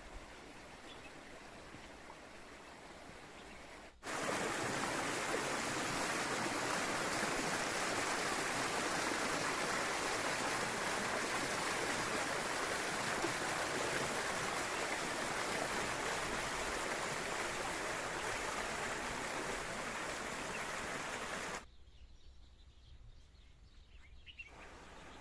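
Spring water running, a steady rushing noise that starts abruptly about four seconds in, runs loud and even, and cuts off abruptly near the end, leaving a much quieter stretch with a few faint ticks.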